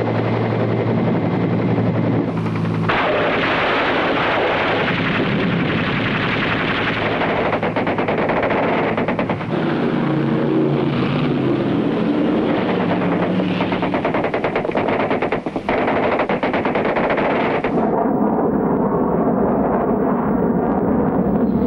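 Rapid machine-gun fire over continuous engine noise, with a steady low drone in the first few seconds. After about 18 seconds the gunfire stops and a duller, steady engine rush carries on.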